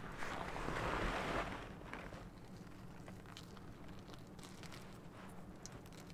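Small wood campfire crackling with scattered sharp pops, opening with a soft rush of noise that lasts about a second and a half.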